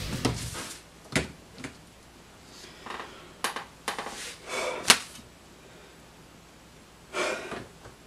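Background music cuts off within the first second. Then comes a quiet small room with a few sharp clicks and knocks from hands handling things on a desk, the loudest about five seconds in, and two short rustling noises.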